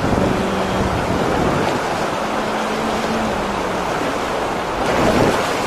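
Fast-flowing river water rushing over rocky rapids, a steady rushing noise.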